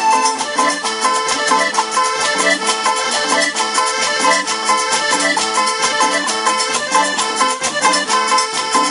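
Live tropical dance band music played loud, with a steady, even percussion beat under pitched melody instruments.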